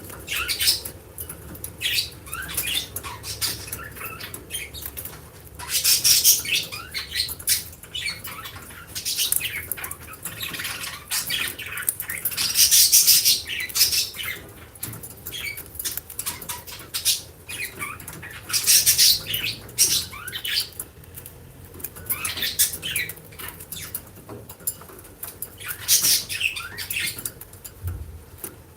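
Lovebirds chattering with rapid, sharp high-pitched chirps and squawks in irregular bursts, several louder flurries of calls between quieter spells.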